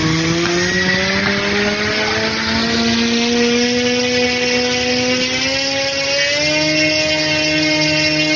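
Brushless outrunner motor on a test bench spinning a propeller, a steady whine with propeller noise. The pitch rises as the motor speeds up and steps higher about five and again about six and a half seconds in.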